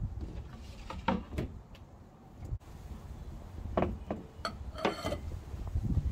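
A few light knocks and clinks of kitchenware being handled on a table: a metal box grater set in a glass bowl and steadied by hand. Low wind rumble on the microphone underneath.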